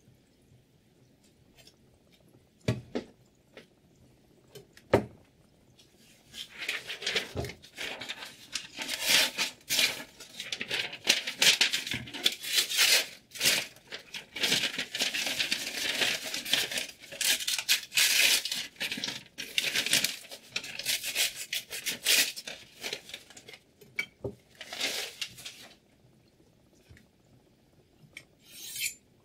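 A chef's knife being handled: two knocks, then about twenty seconds of rapid, rough scraping and tearing strokes of the blade, with a few more strokes near the end.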